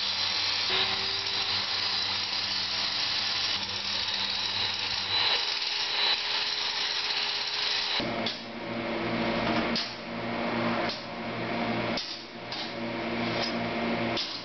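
Angle grinder grinding steel, a steady high whine with a dense hiss for about eight seconds, then giving way to shorter, broken-up bursts of sound.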